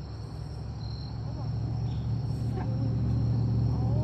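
Insects trilling steadily outdoors, under a low hum that grows steadily louder.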